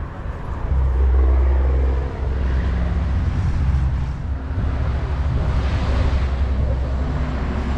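A car engine running with a steady, loud low rumble.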